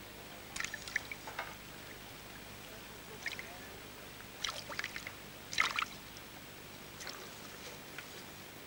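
Water splashing and dripping at the mouth of a keepnet in several short bursts, as a hand puts a small fish into it.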